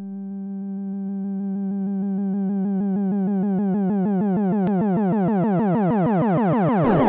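Electronic dance music build-up: a sustained synthesizer note is chopped into pulses that speed up as a rising filter sweep brightens it, swelling steadily louder. Near the end the full track comes in with a burst of hissing noise.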